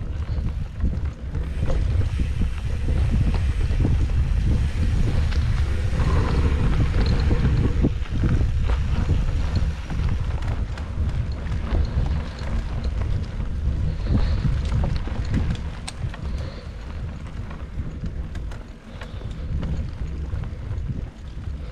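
Wind buffeting the microphone over the rumble of mountain bike tyres rolling on a dirt singletrack, with scattered clicks and rattles from the bike over the rough ground.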